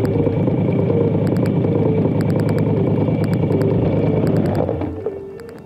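KTM Duke motorcycle engine idling at a standstill, then switched off about four and a half seconds in, its sound dying away.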